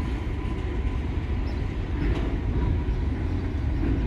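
Freight train of empty cars rolling by: a steady low rumble with no distinct beat.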